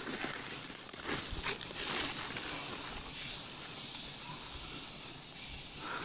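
Leaves and twigs rustling and crackling as brush is pushed aside and cut with hand pruning shears, with several sharp snaps and clicks in the first two seconds.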